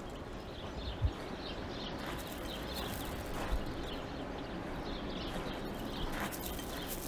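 Outdoor garden ambience: faint bird chirps over a steady background hiss, with a single low thump about a second in and a soft click a few seconds later, likely footsteps on a gravel path.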